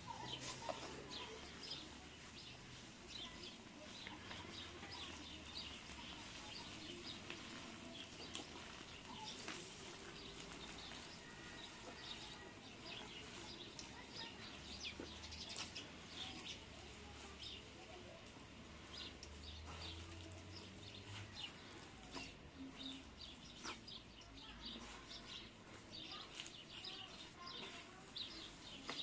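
Hands working flour and water into bread dough in a large aluminium bowl: soft rubbing and squelching. Small birds chirp throughout.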